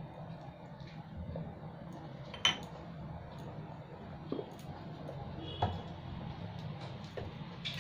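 Thick curry gravy simmering in a pan, with scattered small pops and clicks from bursting bubbles over a steady low hum; one sharp click about two and a half seconds in.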